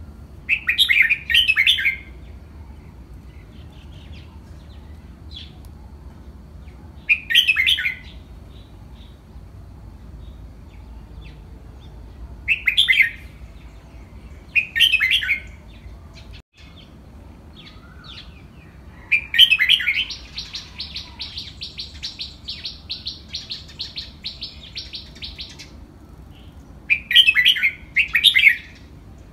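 Caged red-whiskered bulbuls singing short, bright song phrases every few seconds. A little past the middle comes a run of quick repeated notes, about three a second, lasting some five seconds.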